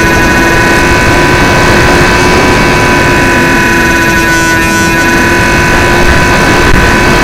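Steady whine of the XK A700B RC airplane's electric motor and propeller, heard from the onboard camera, under loud wind noise buffeting the microphone.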